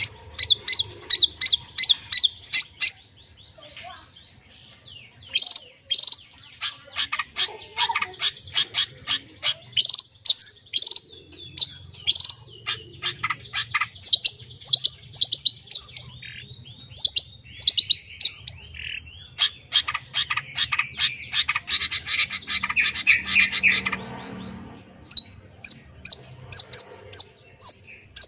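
Long-tailed shrike (cendet) singing a rapid, varied song full of mimicked phrases: fast runs of sharp high notes and trills. There is a short pause about three to four seconds in, and a dense buzzy chatter just before the end, followed by evenly repeated sharp notes.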